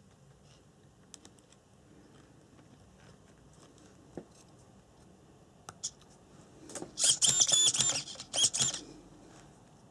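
Hand-work handling sounds while wiring an RC car's speed controller: a few light clicks, then about seven seconds in a loud rasping burst that lasts under two seconds.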